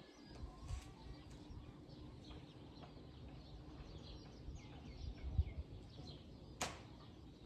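Faint birds chirping in the background, with a few low thuds and a single sharp click near the end.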